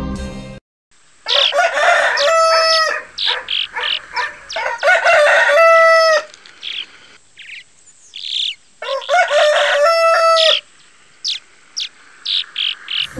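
A rooster crowing three times, about three to four seconds apart. Small birds chirp in short high notes between the crows.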